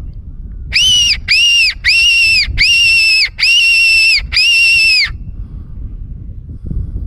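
Silva fox call blown in six short squeals in quick succession, each a high held note that drops away at its end. The call imitates a distressed rabbit to lure foxes and feral cats.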